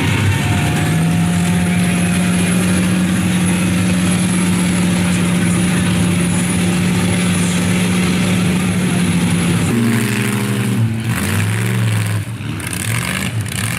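Engine of a lifted pickup truck on giant mud tyres running at high, steady revs while its wheels spin through deep mud. About ten seconds in, the sound changes to engines revving up and down.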